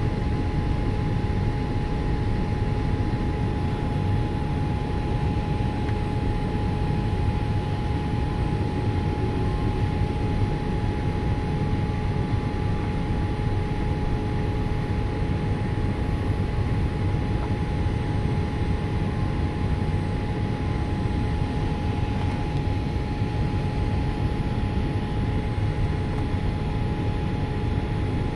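Airliner cabin noise in flight: a steady roar of engine and airflow, strongest in the low end, with a thin steady whine over it.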